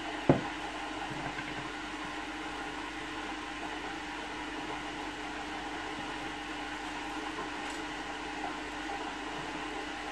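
A steady machine-like hum with a constant low drone, such as a kitchen appliance running, with one sharp knock just after the start.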